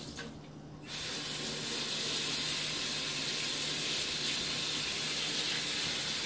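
Kitchen sink tap turned on about a second in, water running steadily into the sink.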